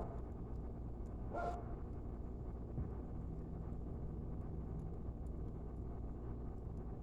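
A dog gives a short bark at the very start and again about one and a half seconds in. Under it runs a steady low rumble with faint, scattered crackling ticks from a wood fire.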